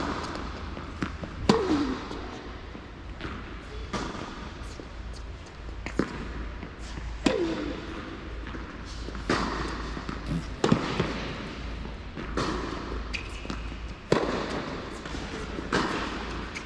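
Tennis rally: a string of sharp racket strikes and ball bounces, roughly one every one to two seconds, each echoing briefly in an indoor tennis hall.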